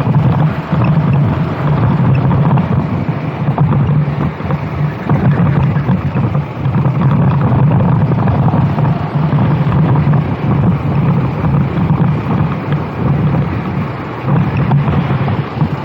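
Racing kart engine running hard, its note rising and falling as the driver accelerates and lifts, with wind buffeting the microphone.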